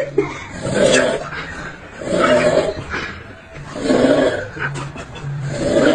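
Rhythmic snoring, four snores about a second and a half apart.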